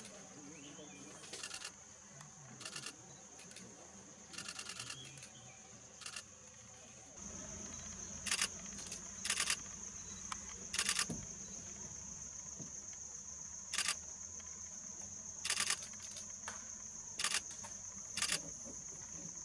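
Steady high-pitched drone of insects, with about a dozen short bursts of rapid clicking a second or two apart. The drone grows louder about seven seconds in.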